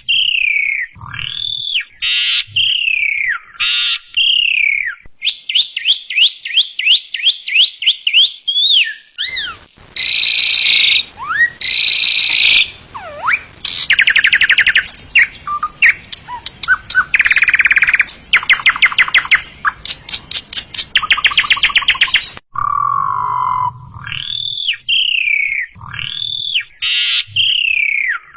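Javan myna (jalak kebo) singing a loud, varied song. Sweeping whistles are followed by a fast series of sharp notes, harsh buzzy calls, and long runs of rapid rattling notes. The opening whistled phrases return near the end.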